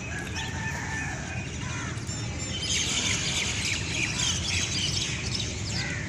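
Birds chirping in a busy chorus of short calls, growing denser and louder about halfway through, over a steady low background rumble.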